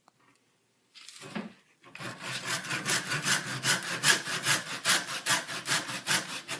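A golf ball being sawn open with quick, even back-and-forth strokes, starting about two seconds in after a short scrape.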